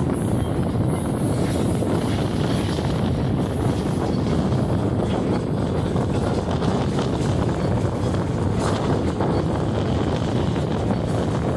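Steady low rumble of a moving train, with wind buffeting the microphone.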